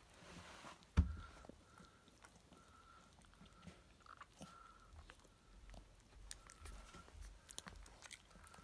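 Newborn puppies suckling at their mother's teats: faint, rapid wet clicking and smacking of nursing mouths. A single sharp thump sounds about a second in.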